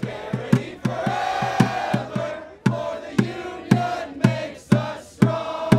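A crowd of protesters chanting together over a steady drumbeat, about two beats a second.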